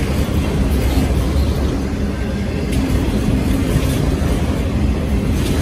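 Autorack cars of a Norfolk Southern freight train rolling past close by: a loud, steady noise of steel wheels on rail, with a few faint clicks.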